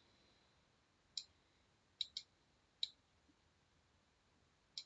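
Computer mouse button clicking about five times as sketch elements are selected: short, sharp single clicks, with a quick pair about two seconds in.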